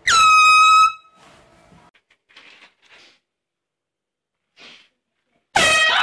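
An air horn blasts once for about a second, a single loud blaring tone, to wake a sleeping little brother as a prank. Near the end a loud, high-pitched wavering cry begins.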